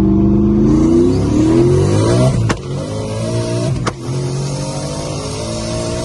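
Ford Mustang engine under hard acceleration through the gears, heard from inside the cabin: the pitch climbs, drops at two quick upshifts about two and a half and four seconds in, each marked by a sharp pop, and climbs again.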